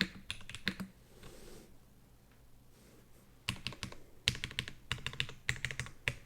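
Typing on a Geon F2-84 mechanical keyboard with Krytox-lubed SP Star Nana switches on an aluminium plate and CRP PBT keycaps. Quick keystrokes stop under a second in, pause for about two and a half seconds, then resume as fast typing past the middle.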